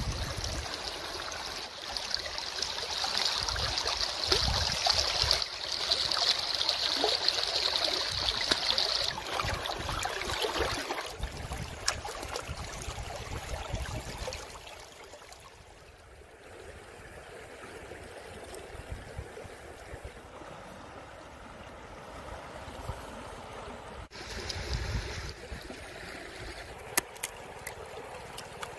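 River water flowing and lapping around a floating bamboo basket, louder for about the first ten seconds, then settling to a quieter wash, with a few small clicks near the end.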